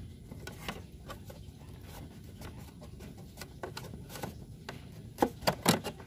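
Handling noise from a cable being worked behind a TV: the HDMI cable rubbing and tapping against the TV's plastic back panel in small scattered ticks. Several louder sharp knocks come close together near the end.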